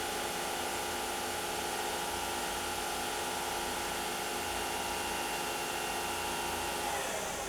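Doosan Lynx 220LC CNC lathe spindle running steadily at about 3,000 RPM, giving an even whine of several steady tones. Near the end the whine drops away as the machine changes what it is doing.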